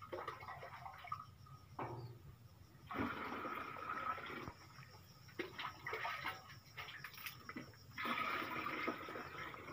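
Liquid fertilizer solution being poured from a plastic scoop into a plastic watering can, in several pours of a second or two each, with splashing and clatter between as the scoop is dipped into a steel drum to fill the can.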